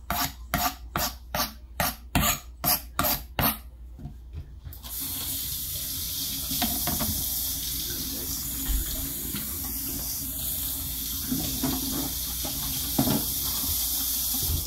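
A knife cuts through watermelon rind and strikes a plastic cutting board about a dozen times in quick, even strokes, roughly three a second. From about five seconds in, a kitchen tap runs steadily into a stainless steel sink over rind pieces being rinsed, with a few soft knocks.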